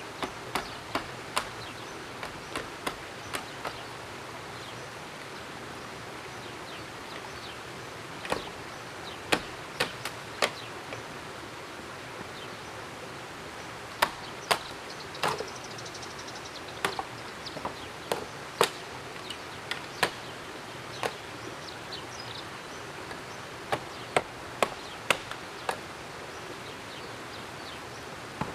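Chopping with a blade, probably into bamboo: sharp single blows that come in irregular runs of a few strikes with pauses of several seconds between, over a steady background hiss.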